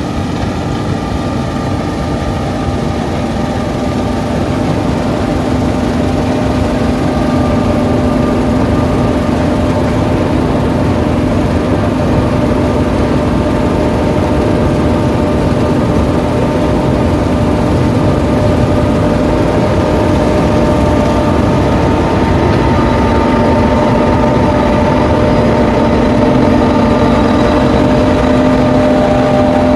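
John Deere S790 combine harvester running steadily while harvesting barley, a constant machine drone that slowly grows louder.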